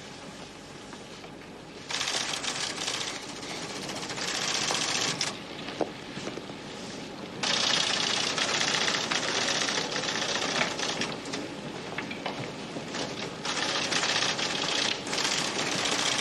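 Computer printing terminal chattering rapidly as it types out a printout, in stop-start runs: quieter for the first two seconds, then loud stretches with short pauses between them.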